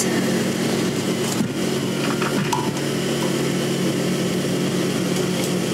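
Table-mounted sewing machine running steadily, its motor giving a level hum while it stitches a zipper into a cotton dress.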